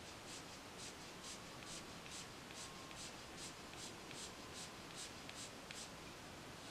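Prismacolor coloured pencil scratching on paper in short, quick flicking strokes, about two or three a second, stopping shortly before the end.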